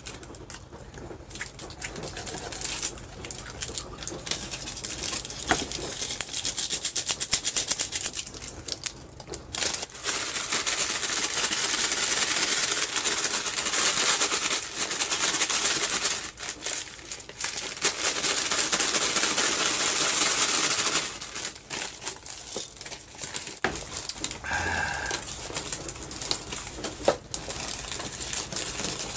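Eating sounds at the table: chewing, with the rustling crackle of hamburger wrapping paper being handled and unwrapped.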